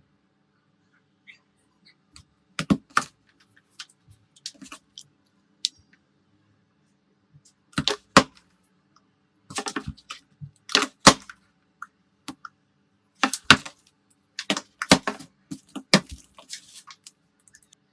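Small hard clicks and taps of tools and phone parts being handled during a phone repair, coming irregularly, singly and in quick clusters, over a faint steady hum.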